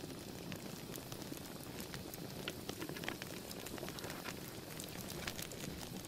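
Open wood fire crackling, with scattered sharp pops at irregular intervals.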